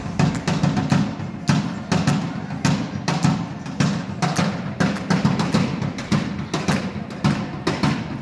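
Drum kit played in a steady beat, with bass drum and snare hits.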